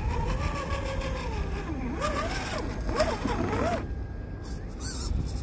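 Electric motor and gear drivetrain of a 1/10-scale RC rock crawler whining under throttle, its pitch gliding up and down with speed, then a few quick throttle blips before it stops abruptly just before four seconds in.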